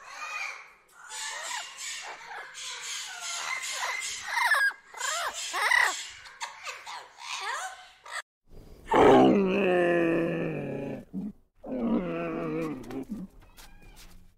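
Birds chirping with quick rising and falling calls for about eight seconds. Then a camel gives two long, deep, loud calls, the first about two and a half seconds long and the second shorter.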